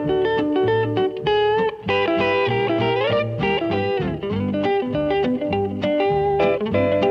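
Background music led by a guitar playing a quick picked melody with bent notes over a steady beat.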